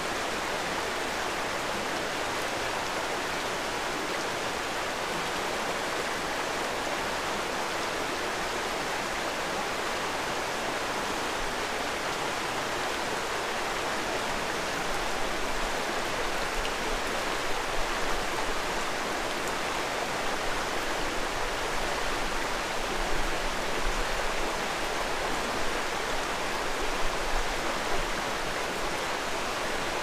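Shallow mountain stream rushing over rocks and riffles in a steady, even hiss of flowing water. From about halfway through, an uneven low rumble comes and goes beneath it.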